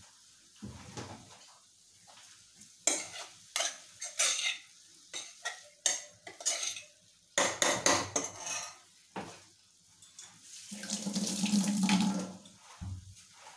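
Steel spoon clinking and scraping against an aluminium pressure cooker as vegetables are stirred, a quick run of sharp clinks over several seconds. Near the end a louder rushing noise swells and fades for about two seconds.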